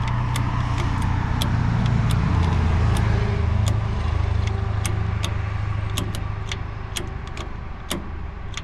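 A steady low engine-like hum, with light clicks scattered throughout.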